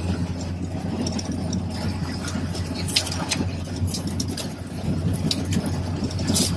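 Car engine running with a steady low hum, heard from inside the cabin, with a few faint clicks partway through.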